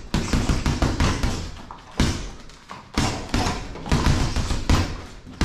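Boxing gloves striking a hanging heavy bag in fast flurries of light, quick straight punches: sharp thuds several a second, with short pauses between flurries.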